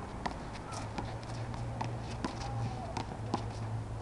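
Rubber handball being slapped by bare hands and striking the concrete wall and asphalt court during a rally: about five sharp smacks spaced irregularly, over a steady low hum.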